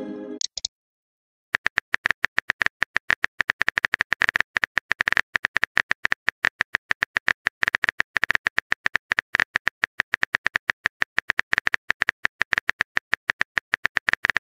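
Keyboard typing click sound effect of a texting-story app: a steady run of rapid, even clicks, several a second, as a message is typed out. At the very start a short sent-message tone sounds, followed by about a second of silence before the clicking begins.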